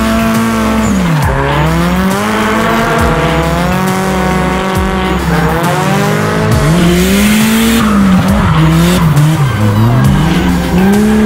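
Drift car engines revving hard near the top of the rev range, the note dropping and snapping back up several times as the drivers lift and clutch-kick, with tyres squealing through the slides.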